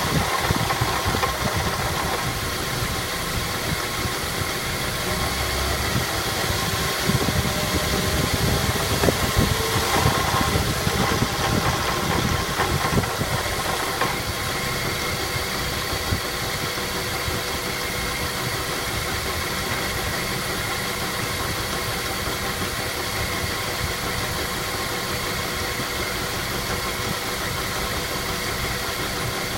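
Mazda 3 running with its automatic transmission making a knocking noise, a fault that appears on overrun and goes away under throttle. The sound is a little uneven with small peaks through the first half, then steadier from about halfway.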